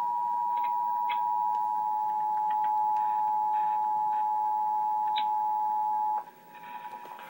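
Emergency Alert System attention signal from a television: two close steady pitches sounding together as one harsh alarm tone, which cuts off suddenly about six seconds in. It announces an emergency alert broadcast, here a severe thunderstorm warning.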